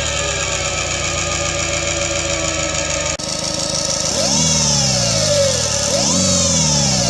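Synthetic engine sound from a homemade optical sound-disc generator imitating a Subaru EJ20 flat-four with equal-length exhaust: revs falling away, then after a sudden break, blipped up and dropping back three times. A steady high tone runs underneath.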